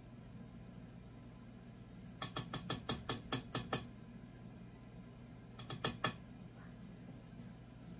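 Quick run of sharp clicking taps from kitchen utensils, a spatula and a measuring cup, as sourdough starter is scooped and knocked into a stand mixer bowl. About nine taps come in a second and a half, then a few more about two seconds later.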